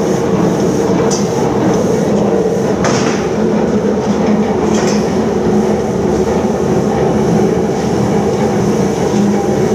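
Triple roll mill running under load, its three steel rollers turning through a white paste, giving a loud, steady mechanical running noise. A few short, high clicks about one, three and five seconds in.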